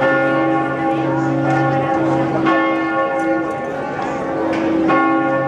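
Church bells of St Mark's Campanile ringing: several bells of different pitches struck again and again, their tones ringing on and overlapping.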